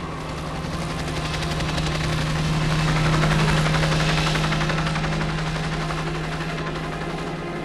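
Helicopter in flight, its rotor chopping fast over a steady engine drone; it swells to a peak about three seconds in and then eases off, as in a pass-by.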